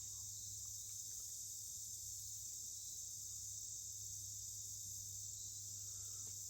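Insect chorus of crickets, a steady high-pitched trilling, with a faint low steady hum underneath.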